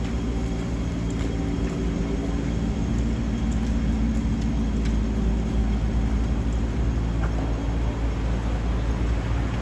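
Steady low rumble of a running vehicle with a constant hum over it, unchanging throughout.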